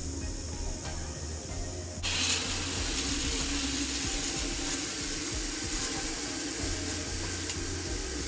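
Steady outdoor wind noise on a phone microphone: a flickering low rumble under a hiss that turns brighter and a little louder about two seconds in.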